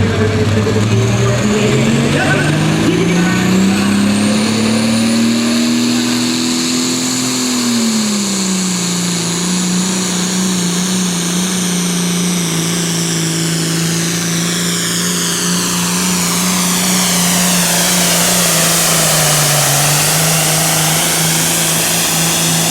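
Super Farm class pulling tractor's turbocharged diesel engine under full load during a pull. The revs climb for the first several seconds, drop back a little about eight seconds in, then hold steady with a brief dip near the end.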